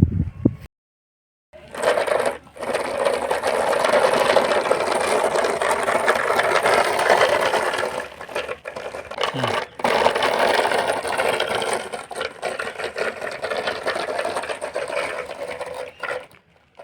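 Small electric motor of a battery-powered toy construction vehicle running with a steady buzz, starting after a short silence about a second in, dipping briefly twice midway, and stopping just before the end.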